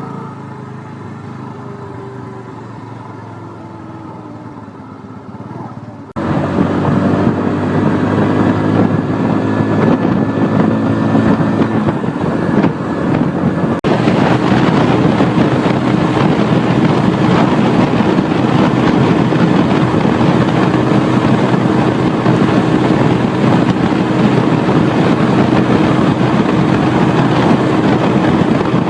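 Small single-cylinder motorcycle engine under way, with wind rushing over the microphone. For the first few seconds it is quieter and its pitch rises and falls as it pulls away. About six seconds in the sound jumps abruptly louder to a steady engine drone and heavy wind noise of riding at speed.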